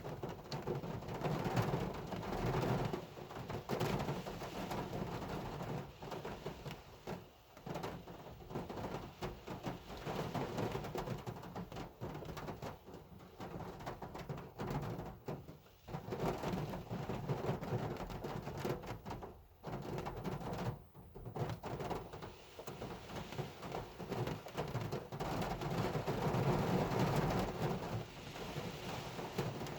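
Hard rain falling on a car, a continuous wash of noise that swells and eases, with a few brief lulls.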